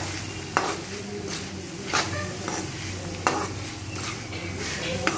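Steel ladle stirring and scraping onions, chillies and dal around a steel kadai, knocking against the pan about four times. Under it runs a steady sizzle of frying on low heat.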